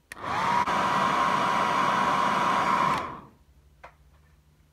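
Handheld hairdryer switched on, its motor whine rising quickly to a steady pitch over the rush of air. It runs for about three seconds, then is switched off and winds down.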